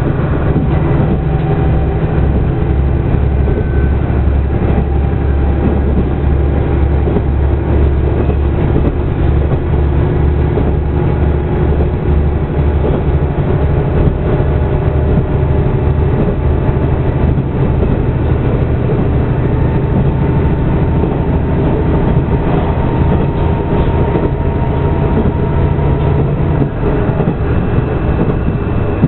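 Passenger train running along the line, heard from inside the carriage: a steady low rumble from the running gear with wheel-on-rail noise, and a faint tone that rises slowly in the last few seconds.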